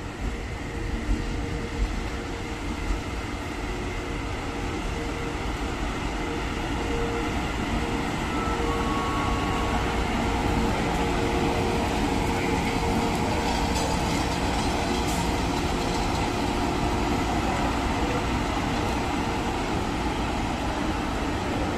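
FS E.652 electric locomotive moving slowly past at close range: the steady hum of its motors and cooling fans, growing louder over the first ten seconds as it draws near. A few knocks from the wheels come in the first three seconds.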